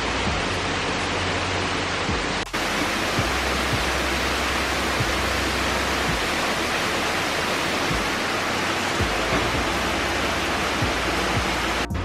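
Steady rush of a creek waterfall and water running over rocks, with a brief dip about two and a half seconds in.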